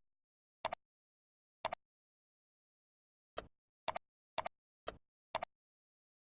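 Computer mouse clicking: seven sharp clicks, the first two a second apart and the rest about every half second, most followed by a softer release click, with dead silence between.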